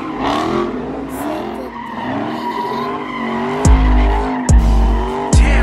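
A car spinning donuts, its tyres squealing and its engine revving up and down. About two-thirds of the way in, a bass-heavy music beat joins in.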